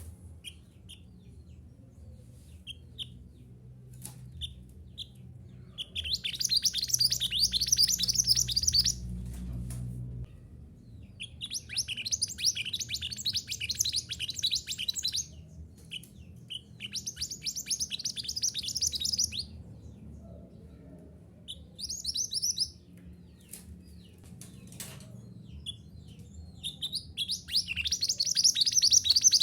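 Mantenan gunung songbird singing in rapid, chattering bursts of high notes: five phrases of one to four seconds each, separated by pauses with scattered single chirps. A faint low hum runs underneath.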